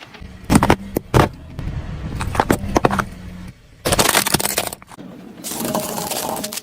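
A car's engine running as its tyres roll over and crush objects: several sharp cracks in the first second or so, then two loud stretches of crunching and crackling about four and five and a half seconds in.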